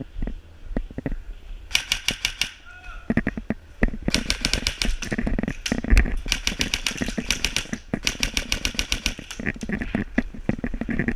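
Airsoft guns firing rapid full-auto bursts: a short burst about two seconds in, then longer strings of fast, evenly spaced shots from about four seconds to near the end, over low thumps.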